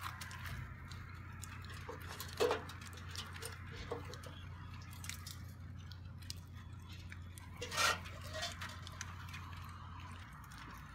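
Metal clanks and taps as an old copper bed warmer is handled and its hinged lid opened: two sharper clanks, about two and a half seconds in and near eight seconds in, with a few lighter taps between. A low steady hum sits underneath and stops near the end.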